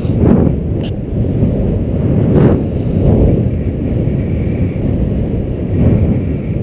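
Wind buffeting the microphone of a helmet camera on a paraglider in flight just after launch: a loud low rumble that rises and falls in gusts.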